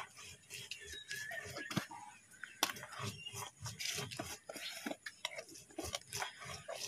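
Plastic spice jars being handled and opened: lids twisting and clicking, with rubbing and a scatter of light clicks.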